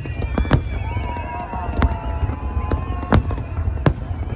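Fireworks going off: about five sharp bangs, roughly a second apart, over a continuous low rumble, with high wavering whistles threading through.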